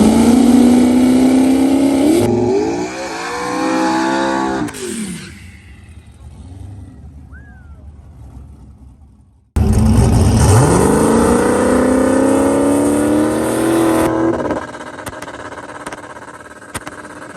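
Turbocharged 5.3 LS V8 in a Mustang drag car accelerating hard, its engine pitch climbing, stepping up and climbing again before it falls away and fades. Then, abruptly, a second run starts loud and climbs steadily before it drops off near the end.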